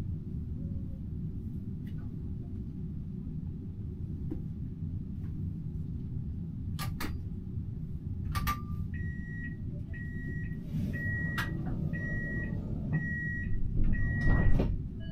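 Steady low hum in a Siemens Avenio tram's driver's cab, with a few sharp clicks. Then a high warning beep repeats about once a second, six times. The sound swells near the end.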